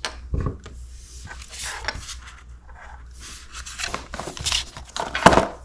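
Small plastic miniature pieces and cardboard boxes being handled on a wooden tabletop: light scattered clicks and taps, with a louder knock about five seconds in.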